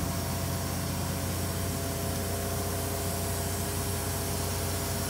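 Work-lift platform's motor running with a steady low hum under an even hiss as the platform lowers.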